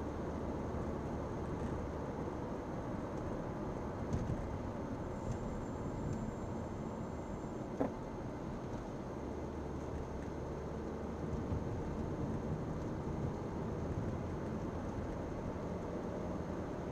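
Steady road and engine noise of a 2010 Toyota Camry LE with its 2.5-litre inline-four, driving along and heard from inside the cabin, with one short click about eight seconds in.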